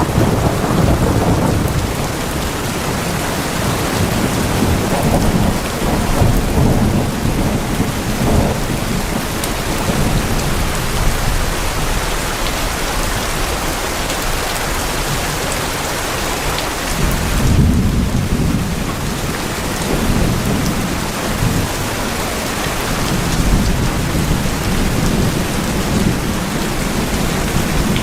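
Steady rain falling on tin roofs, with deeper rumbling swells about a second in and again about two-thirds of the way through.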